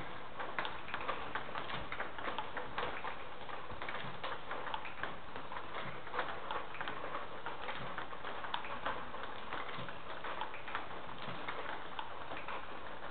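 Table tennis ball clicking against bats and the table in a rally, a quick irregular run of light ticks, several a second, over the steady background noise of a sports hall.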